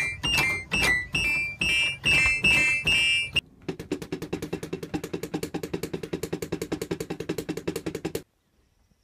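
An electronic keyboard played by a horse's muzzle, sounding a run of uneven clustered notes. About three and a half seconds in it cuts to drumsticks hitting a drum pad in fast, even strokes, which stop suddenly about a second before the end.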